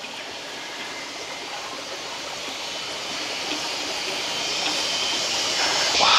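A wok of wild quail and forest-fruit stew simmering over a wood fire: a steady watery hiss that grows gradually louder, swelling near the end.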